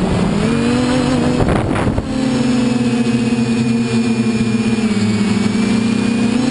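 TBS Discovery quadcopter's electric motors and propellers whining steadily while it hovers low, the pitch dipping and rising as the throttle changes. A brief rush of noise about a second and a half in.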